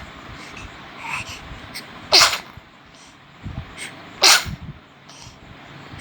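A baby sneezing twice, about two seconds apart, each sneeze short and sharp, with quieter short sounds in between.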